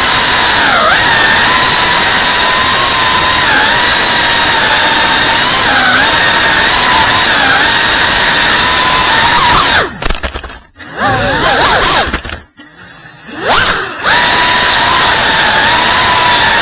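Indoor FPV whoop drone's motors whining at a high pitch that wavers with throttle, over heavy hiss from the onboard recording. About ten seconds in the sound drops away twice, with the pitch gliding up and down between, then comes back at full level for the rest.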